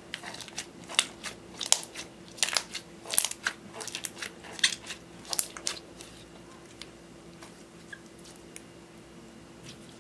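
Green glitter slime, clear slime mixed with eyeshadow, pressed and squeezed by hand, giving a quick series of sharp crackles and pops as trapped air bubbles burst. The crackling dies away after about six seconds, leaving a few soft clicks.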